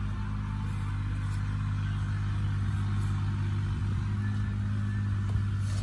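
An engine running steadily at low pitch, an even hum with a fast pulse.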